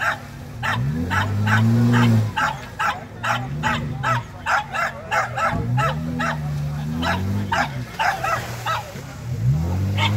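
Jeep Wrangler's engine revving up and falling back several times as it crawls out of a mud pit, over a dog barking rapidly and repeatedly, about three barks a second.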